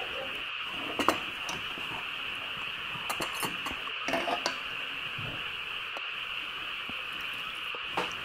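Scattered light clicks and knocks of chopsticks, skewers and dishes on a table while eating, over a steady high hiss.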